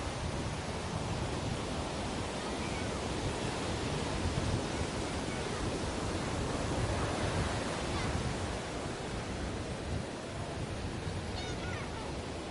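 Sea waves washing onto a beach: a continuous surf wash that swells a little through the middle and eases slightly near the end.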